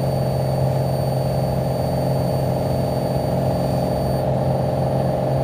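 Single-engine piston airplane's engine and propeller at takeoff power in the initial climb, heard from inside the cockpit: a steady, even drone.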